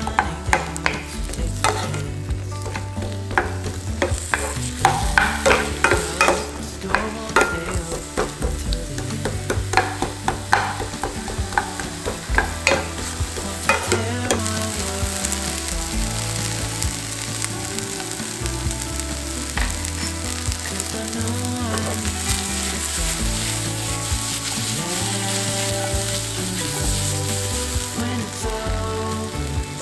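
Chopped onions sizzling in olive oil in a frying pan, stirred with a wooden spatula. Many quick taps and scrapes of the spatula through the first half, then a steadier sizzle.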